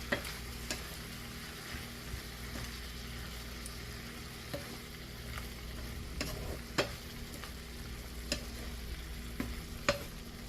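Bok choy and carrot sizzling gently in butter in a pot, with a utensil clicking against the pot at irregular moments as the vegetables are stirred.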